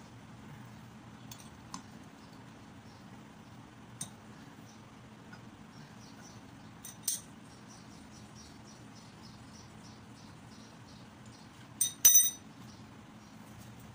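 Ratchet wrench clicking in a regular run of light ticks, about four a second, as the flywheel nut of a Honda GX110 engine is run down, with a few sharper metal ticks before it. Near the end, a couple of loud metallic clanks.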